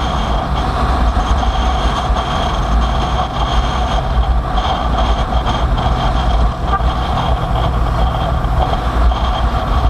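Motorcycle on the move: a steady engine drone under heavy low wind rumble.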